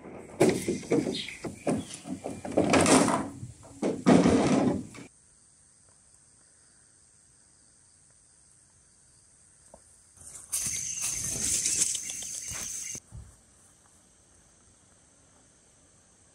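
Hollow bamboo poles clattering and scraping against one another for about five seconds as one is pulled from a pile. Then the steady high-pitched buzz of insects, broken about ten seconds in by a rustling burst of a couple of seconds.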